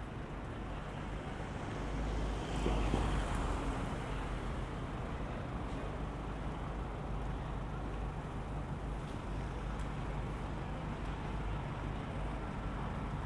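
City street traffic: a steady low engine rumble, with a passing vehicle swelling loudest about two to three seconds in. A London black cab's engine idles close ahead, waiting at a red light.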